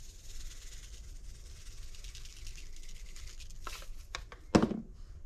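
Seasoning shaken from a shaker bottle onto raw fish fillets, a faint light pattering. Near the end come a few sharp clicks and one louder knock as the bottle and its cap are handled.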